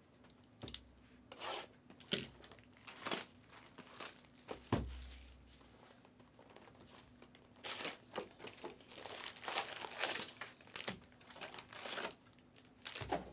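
Plastic shrink-wrap being torn and crinkled off a sealed Panini Donruss basketball hobby box. There are scattered short rips at first, a dull thump about halfway through, then several seconds of continuous crinkling.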